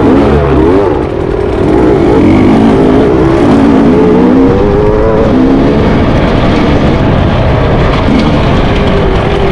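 Enduro dirt bike engine heard close up from the rider's own machine, revving up and down as the throttle is worked, its pitch rising and falling every second or so. The revs dip briefly about a second in.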